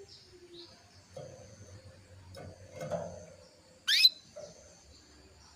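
Female canary calling in breeding condition: a few faint short chirps, then one loud, sharp chirp sweeping steeply upward about four seconds in.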